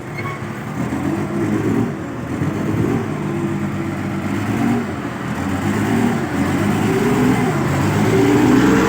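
Engine of an LHD (load-haul-dump) mining loader running, its speed rising and falling several times; it has just been got going after a no-start problem.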